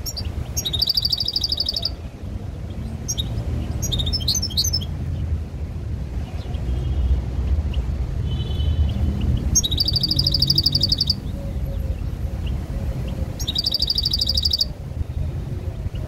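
European goldfinch singing from a cage: four bursts of rapid, high trilled song, each about a second or two long, with a few soft notes between them, over a steady low background rumble.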